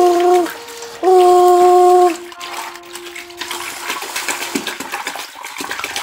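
Water sloshing and swishing as wet cloths are rubbed and squeezed by hand in a washing-machine tub. In the first two seconds two long, steady held tones of about a second each sound louder than the water.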